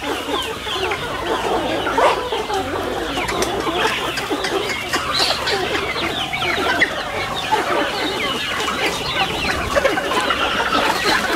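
A flock of Indian country chickens (nattu kozhi) clucking and calling all at once: many short, high, overlapping calls that run on without a break.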